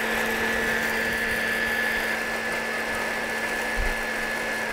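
Electric mixer grinder (mixie) running steadily, dry-grinding the roasted masala to a powder; a constant motor hum and whine over a grinding rush, switched off near the end.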